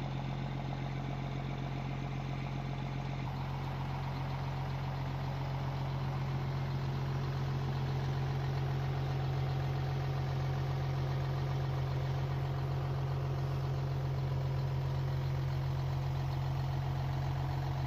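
A large bus engine idling steadily, a constant low drone with no change in speed.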